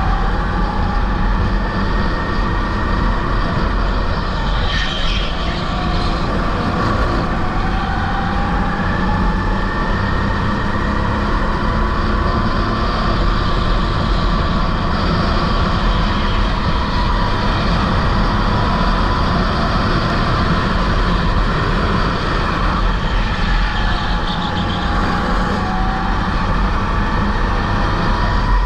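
Rental go-kart engine running at racing speed, its pitch rising and falling again and again as the kart accelerates and slows through the corners.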